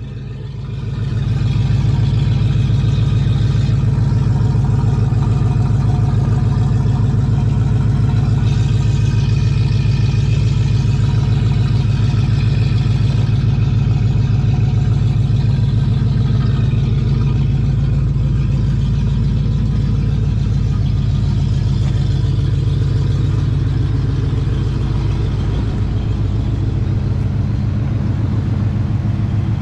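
A 1972 Cutlass Supreme's 350 V8 running steadily with a low, even pulse. It swells up about a second in.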